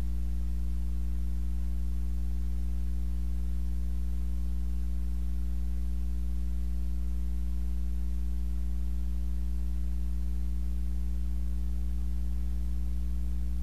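Steady electrical mains hum: a low buzz with a few fainter fixed tones above it, unchanging throughout, and no other sound.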